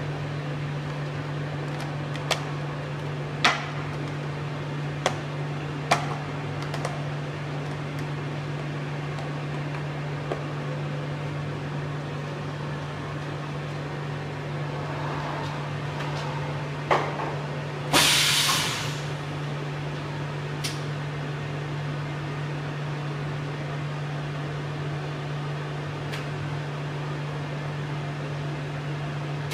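High-frequency plastic sealing machine humming steadily, with a few light clicks and knocks as clear plastic blister packs and the mould tray are handled in the first six seconds. A knock, then a short hiss about eighteen seconds in.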